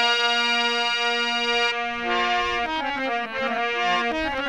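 Instrumental music: a chord held for about two seconds, then a melodic line of quickly changing notes.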